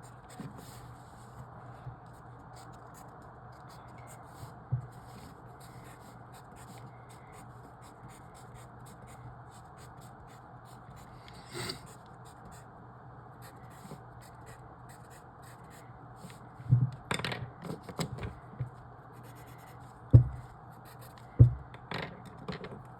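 Pen scratching and tapping on paper while marking boxes in a logic-puzzle grid, with a cluster of louder taps and scrapes in the last several seconds, over a steady low hum.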